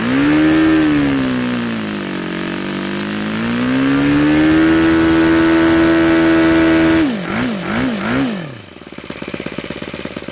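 YS FZ63S supercharged four-stroke model-aircraft glow engine, swinging a 12x8 propeller, snapping up from idle to high revs, sagging and climbing back, then holding steady at full throttle. About seven seconds in it is blipped three times in quick succession, then drops back to a steady idle, picking up cleanly without faltering.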